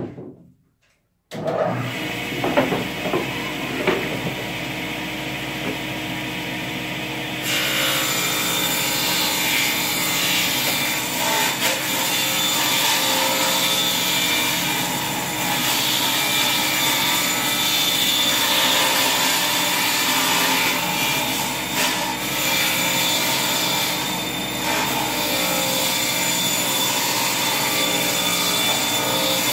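Cabinet table saw running and ripping a long panel fed across the blade: a steady, loud cutting sound that turns hissier about seven seconds in.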